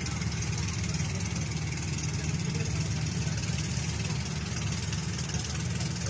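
Engine of a motorised wooden river boat running steadily with a fast, even low throb.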